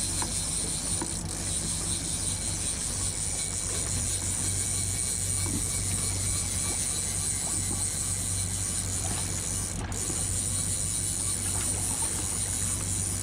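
Boat engine running steadily at low speed, a constant low hum with an even hiss above it.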